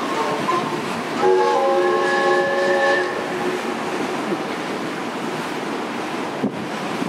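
Steam whistles on a paddlewheel steamboat sound one held chord of several notes for about two seconds, starting about a second in. Wind and water noise follow.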